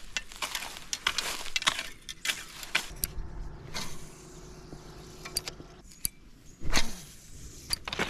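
Footsteps pushing through brush and tall grass, with small clicks and clinks from handheld fishing tackle. The middle is quieter, with a faint low hum, and one sharp knock comes near the end.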